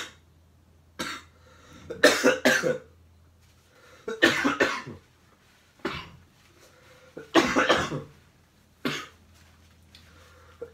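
A man coughing in a series of short fits, one to three hacking coughs at a time, spaced a second or two apart: a lingering cough from getting over bronchitis.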